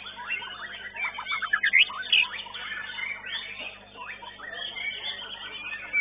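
White-rumped shamas (murai batu) singing in competition: a dense, varied stream of quick whistles and chirps, with a loud fast run of notes about two seconds in.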